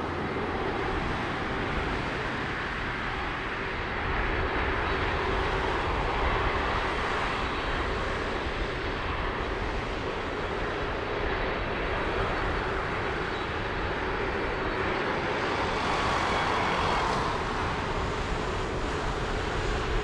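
Airbus A320 jet engines at takeoff thrust, a steady rumble with a faint humming tone, as the airliner rolls down the runway, lifts off and climbs away.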